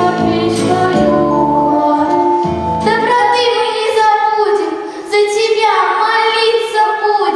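A song sung by young female voices over musical accompaniment; the low accompaniment drops out about three seconds in, leaving long held sung notes.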